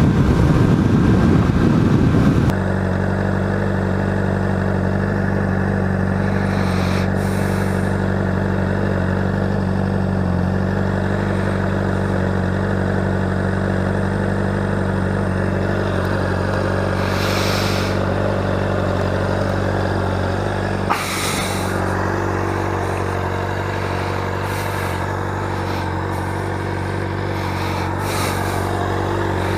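Honda CBR600RR's inline-four engine running at a steady speed, with wind rushing past; the wind is louder in the first couple of seconds.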